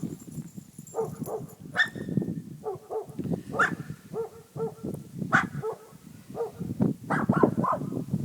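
Dogs barking repeatedly, a string of short barks with some higher, sharper ones among them.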